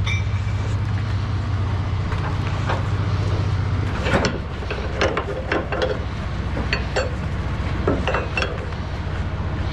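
Truck engine idling with a steady low hum, then from about four seconds in, a string of sharp clicks and knocks as a flatbed cargo strap is worked loose at its winch on the bed rail.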